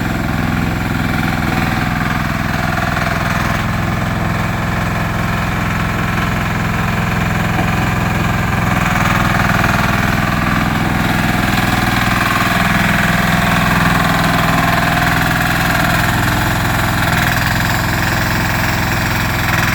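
JCB excavator's diesel engine running steadily, a little louder for a few seconds in the middle.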